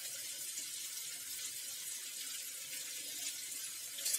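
Okra frying in oil in a pan: a steady, soft sizzle, with one brief click near the end.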